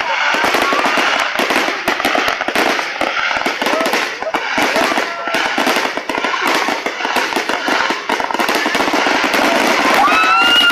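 Fireworks going off in a dense, continuous crackle of many overlapping pops and bangs.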